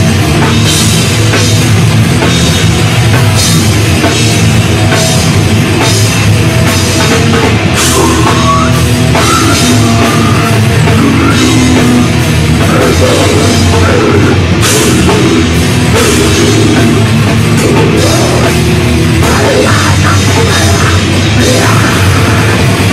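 Heavy metal band playing live, loud and dense: distorted electric guitars, bass and drum kit.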